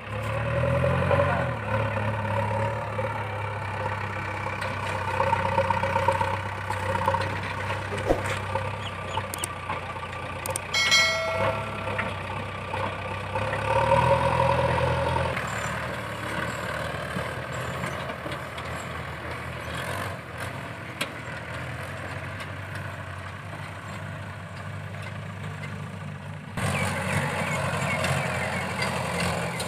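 Diesel engine of a JCB 3DX backhoe loader running, revving up near the start and again about 14 seconds in as it works its loaded front bucket, with a brief high tone about 11 seconds in. Near the end the Mahindra 585 DI tractor's diesel engine pulls its loaded trolley away.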